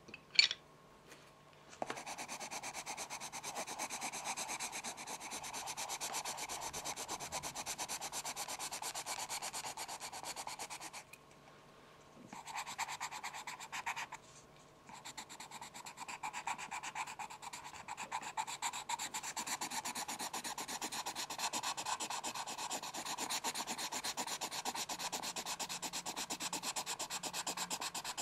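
A pencil scratching in quick, even back-and-forth strokes, stopping twice briefly around the middle. Just before the scratching starts there is a single sharp tap.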